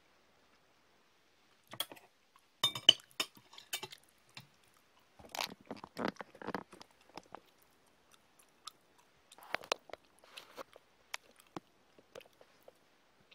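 Metal fork and knife clinking against a ceramic plate as they are set down, the loudest clinks about three seconds in, followed by scattered softer clicks and handling sounds.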